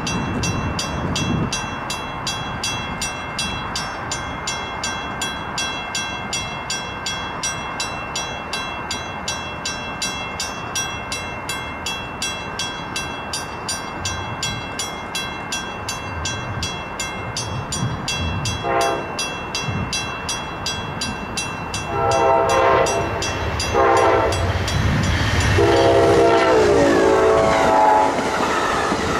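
Amtrak passenger train's horn sounding for a grade crossing: a brief toot about two-thirds of the way in, then a long blast, a short one and a final long blast as the train rolls past close by with a rising rumble. A crossing bell rings steadily and rapidly underneath.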